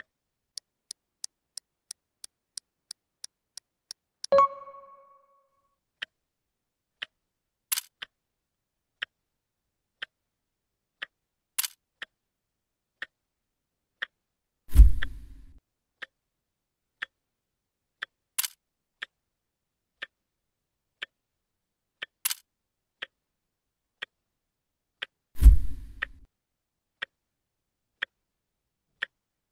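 Clock-ticking sound effect, quick at first and then about one tick a second, with a two-note chime about four seconds in and two loud thumps near the middle and near the end.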